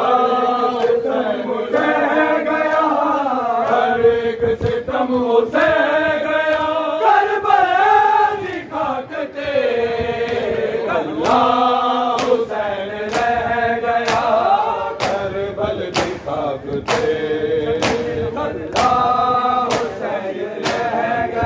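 Group of men chanting a nauha, a Shia lament for Imam Hussain, in unison on long held notes. Sharp slaps come about once a second in time with it, from matam, mourners beating their bare chests.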